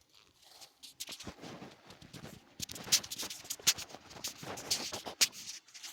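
Irregular footsteps and rustling on the ground, a quick run of uneven crunches and taps that stops shortly before the end.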